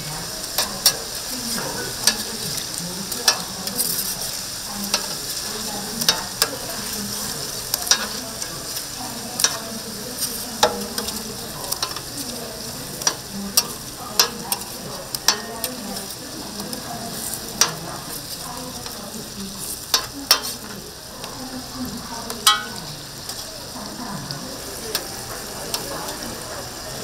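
Tteokgalbi (Korean minced short rib patties) sizzling as they cook on a hot surface: a steady frying hiss with sharp clicks and taps about once a second.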